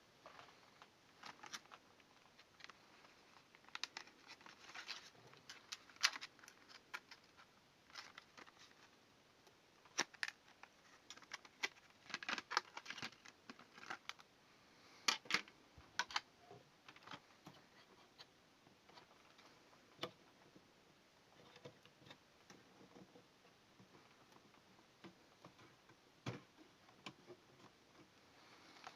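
Hands handling computer hardware and packaging: scattered small clicks, taps and rustles at irregular intervals, busiest in the middle.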